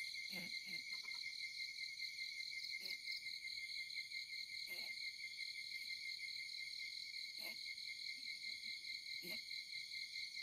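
Steady high-pitched insect trilling, with a short, lower-pitched call repeating five times, about every two to three seconds, from an unidentified source.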